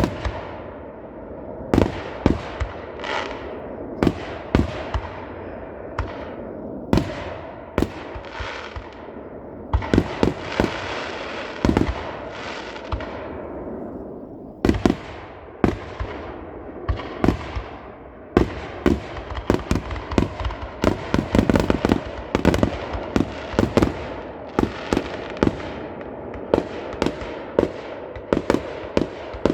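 Fireworks display going off: a steady run of sharp bangs and booms, several followed by long hissing, crackling trails that fade away. The bangs come thickest in a rapid flurry past the middle.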